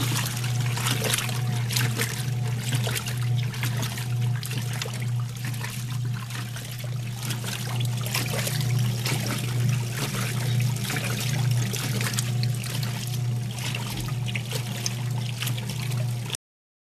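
Mueller Belíssima and Consul Jasmim top-loading washing machines running together: a steady motor hum under irregular splashing and trickling water. It cuts off suddenly near the end.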